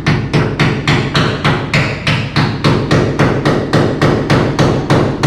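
Rapid, steady hammering, nearly four sharp strikes a second, kept up without a break.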